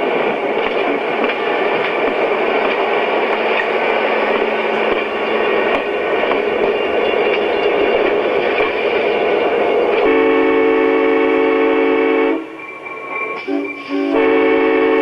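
Train sounds: a steady noisy running sound for about ten seconds, then a sustained train horn that stops for about two seconds and sounds again near the end.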